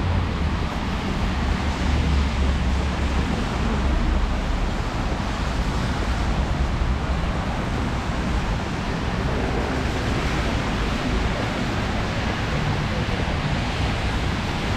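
Steady wash of traffic noise on a rain-wet street: tyres hissing on the wet road over a low engine rumble, swelling a little about two and four seconds in.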